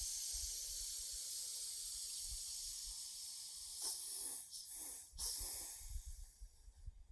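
A person exhaling a long, steady "sss" hiss through the teeth: the metal, or lung, healing sound of Six Healing Sounds qigong. It fades about four seconds in and is followed by a few short, sharp breaths out, the clearings at the end of the breath.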